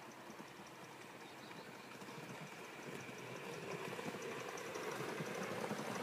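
Gauge 1 model of a North Eastern R1 4-4-0 locomotive running along the track, a fast, even mechanical chatter that grows louder as it draws near.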